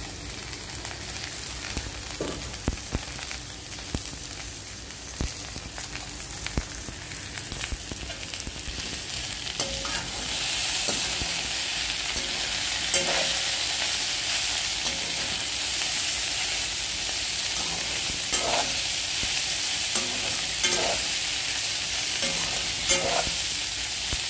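Okra and sliced onions frying in oil in a metal kadhai, sizzling, while a perforated metal spoon stirs them with scattered scrapes and knocks against the pan. The sizzle grows louder about ten seconds in.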